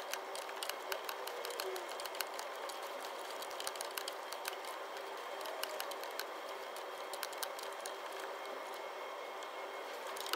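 Quick, irregular clicking as the crankshaft of a Toyota Hilux 2.5 2KD-FTV diesel is turned over by hand with a 22 mm socket wrench, over a faint steady hum. This is the hand check that the timing marks come back into line after a new timing belt is fitted.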